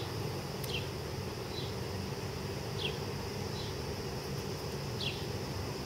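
Outdoor ambience of insects buzzing steadily, with short high falling chirps every second or so, over a low steady rumble.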